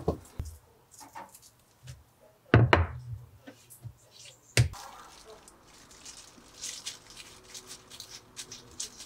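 Kitchen handling of rice-cake dough: a few wooden knocks as the rolling pin and dough are moved on the silicone mat, the loudest a cluster a few seconds in and one sharp knock shortly after. Then soft crinkling of a plastic glove as red bean paste is spread onto the dough.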